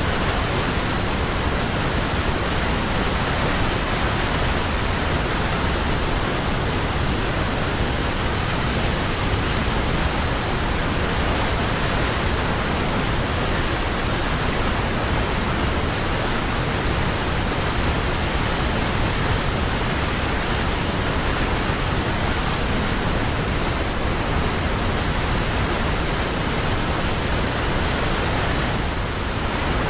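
Waterfall: falling water making a steady, unchanging noise.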